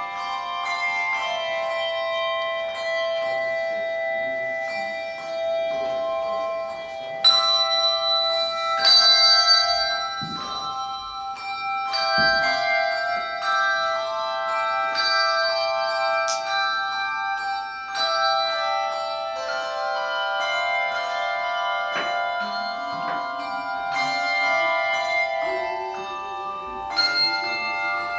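Handbell choir playing a piece: many bells struck in turn and in chords, each note ringing on and overlapping the next, with a few louder strikes about seven and nine seconds in.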